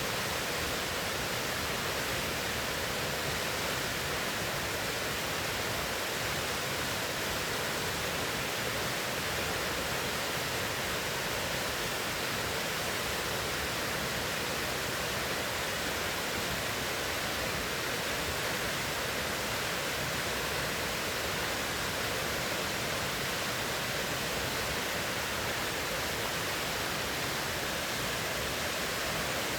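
River water rushing, a steady, unchanging noise.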